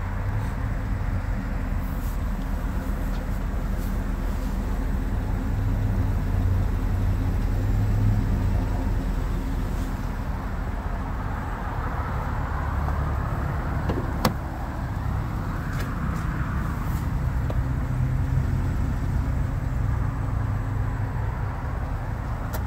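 Steady low vehicle rumble outdoors, with one sharp click about two-thirds of the way through.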